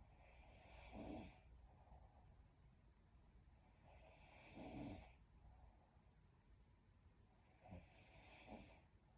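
A young woman snoring faintly in her sleep: three slow snoring breaths, roughly four seconds apart.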